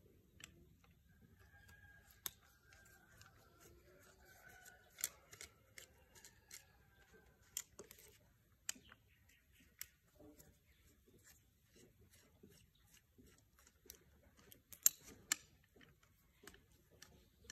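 Scattered sharp clicks and small knocks of a long screwdriver and the plastic housing of an angle grinder being handled during repair, with two louder clicks about fifteen seconds in.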